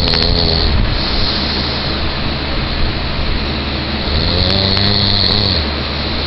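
A person doing an impression of snoring: one snore dies away in the first second, and a second drawn-out snore comes about four seconds in. A steady rushing noise runs underneath.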